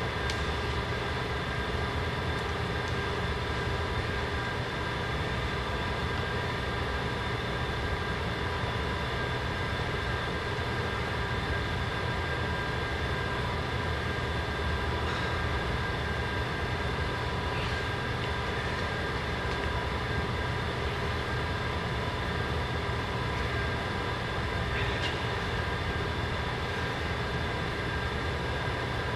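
Steady mechanical drone that holds several constant tones and never changes, with a few faint ticks.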